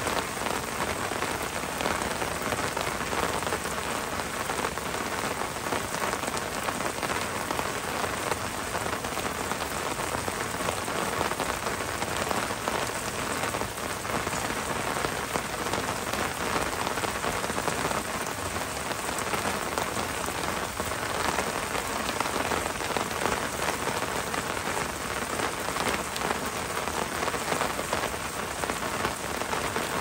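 Heavy rain falling steadily on a wooden roof, a dense, even patter that does not let up.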